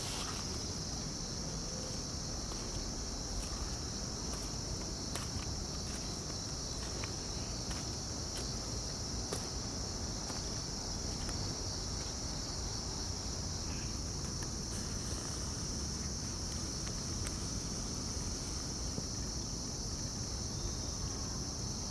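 Crickets chirping in a steady, high-pitched chorus, with faint scattered clicks and rustles.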